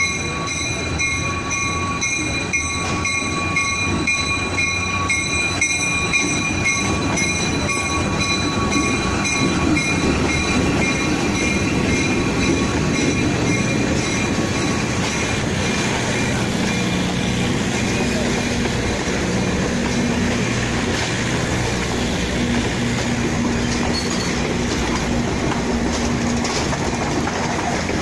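PeruRail passenger train rolling past at close range: a steady rumble of carriages with clacking wheels. A steady high whine sits over the first half and then fades.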